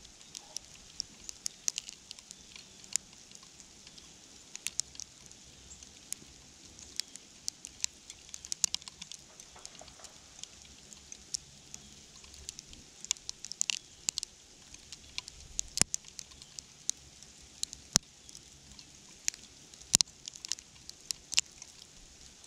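Faint, irregular ticking and pattering of wintry precipitation hitting surfaces near the microphone, a few sharp ticks a second over a light high hiss.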